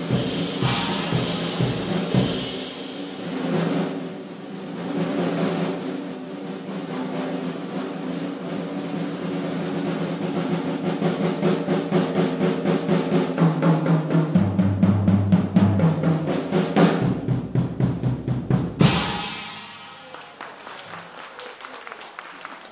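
Jazz drum kit playing a fast building roll with cymbals over the band's held closing chord, cut off sharply on a final hit a few seconds before the end; it is much quieter after.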